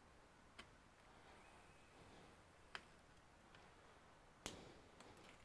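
Near silence broken by a handful of faint, sharp clicks and taps of a small metal tool and gloved hands working on a laptop motherboard, the loudest about four and a half seconds in.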